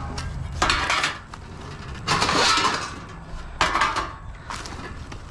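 Scrap metal clattering and scraping as it is handled and pulled loose: several rattling crashes about a second apart, over a steady low rumble.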